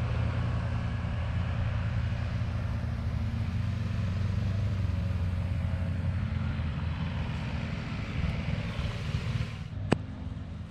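A motor vehicle running: a steady low rumble with a faint hiss above it, and one sharp click near the end.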